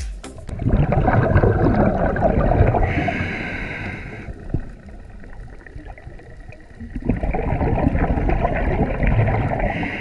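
Scuba diver breathing through a regulator underwater: two long, gurgling rushes of exhaled bubbles, each lasting about four seconds, with a quieter lull between them.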